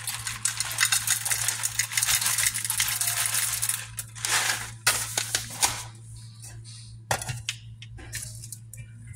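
Coffee beans poured from a paper bag into the metal bowl of an electric coffee grinder, a dense rattle for about four seconds, then several shorter pours. A few sharp clicks about seven seconds in as the grinder's clear plastic lid goes on.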